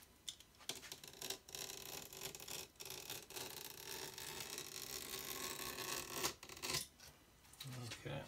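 A blade cutting along the edge of old amp grill cloth on its baffle board: a few short clicks, then a long scratchy rasp that ends in a louder knock.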